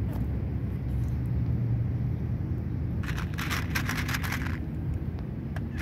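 A cat crunching dry kibble for about a second and a half near the middle, over a steady low background rumble.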